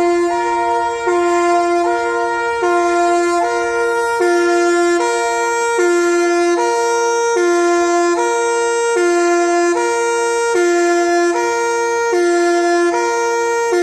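Tyfon MKE tremulator horn siren sounding a loud two-tone alarm, switching back and forth between a lower and a higher note roughly every three-quarters of a second. It starts abruptly.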